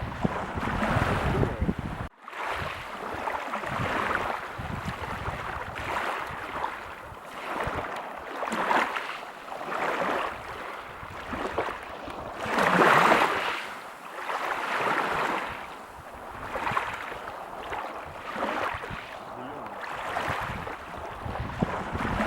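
Waves breaking and washing up a beach, the surf swelling and falling back every second or two, with one bigger surge about halfway through. Wind rumbles on the microphone in the first two seconds, broken by a brief dropout.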